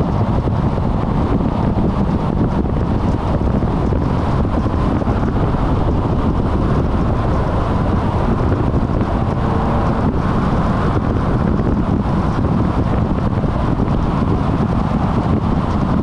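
Steady road and wind noise of a car driving at speed, with wind buffeting the microphone.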